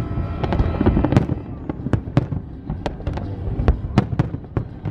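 Large aerial fireworks display going off in quick succession: sharp bangs and cracks about four a second over a constant low rumble of booming shells.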